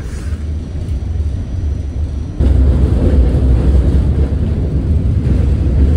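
R44 electric subway train heard from inside the car as it pulls away and picks up speed: a steady low rumble of motors and wheels on the rails that grows louder, jumping up sharply about two and a half seconds in.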